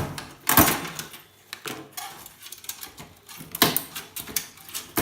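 Irregular knocks and rattles of wiring being pulled out of an old PC tower by hand, with cables and connectors knocking against the case. The sharpest knocks come about half a second in and again near three and a half seconds.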